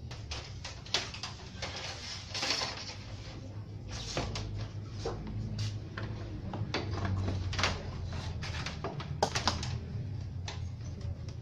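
Irregular plastic clicks, knocks and rattles as the rear cabinet of a Sony Wega CRT television is handled, over a steady low hum.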